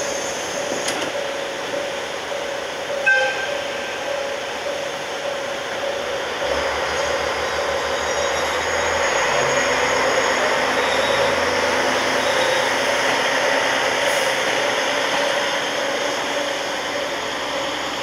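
Diesel train running at a station, with a steady hum. A low rhythmic engine throb sets in about six and a half seconds in and grows louder toward the middle. There is a single sharp click about three seconds in.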